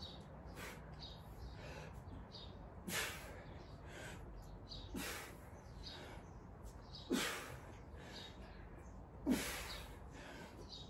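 A man's sharp, forceful exhales, one about every two seconds, four in all, the last two loudest: effort breathing timed to the repetitions of a shoulder exercise.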